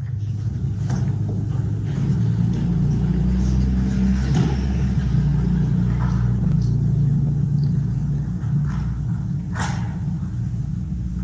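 A steady low rumble of room noise in a church sanctuary, starting abruptly. Over it come a few faint clicks and knocks of small objects being handled on the altar table, the sharpest one near the end.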